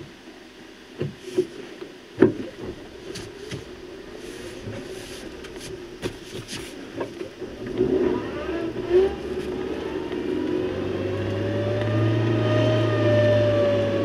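A vehicle driving on a forest road, with a few sharp knocks in the first couple of seconds. Its engine grows louder from about halfway through, its pitch rising and then falling.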